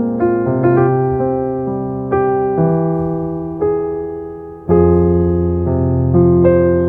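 Slow piano music: notes and chords struck and left to ring and fade, with a louder, fuller chord about two-thirds of the way in.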